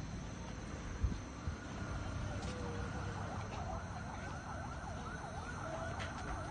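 A siren warbling quickly up and down, starting about two and a half seconds in, over a steady low background rumble, with a short thump about a second in.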